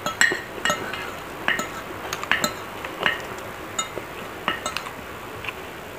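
Metal spoon and fork clinking and scraping against a ceramic plate in a string of about ten irregular, sharp clinks.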